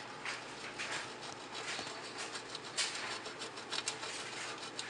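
Block of Parmesan cheese being grated on a metal box grater: repeated scraping strokes of the cheese against the grater's teeth.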